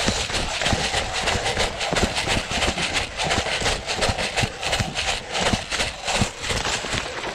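A person running over wet ground: quick, even footfalls about two a second.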